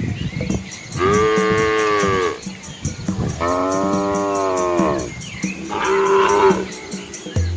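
Cattle mooing: three separate drawn-out moos, the first two lasting a second or more each and the third shorter, near the end.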